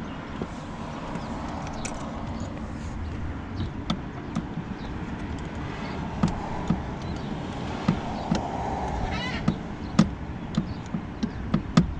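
Light clicks and taps of plastic and metal as a bushing is worked by hand onto the door check strap's centre pin of a Mercedes W221 front door. The clicks are scattered, coming more often in the second half, over steady background noise.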